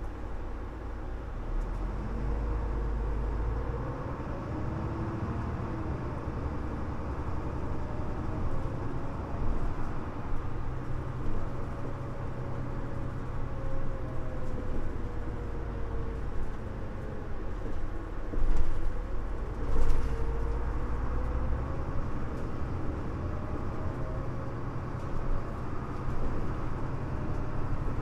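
Mitsubishi Fuso LKG-MP37FM city bus heard from inside while driving: steady diesel engine and road rumble, with a whine that rises and falls as the bus speeds up and slows. Two brief loud noises come about a second apart, a little past the middle.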